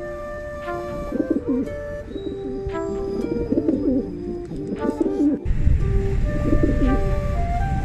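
Domestic pigeons cooing repeatedly, several calls overlapping, over background music with held notes. A low rumble joins in about five and a half seconds in.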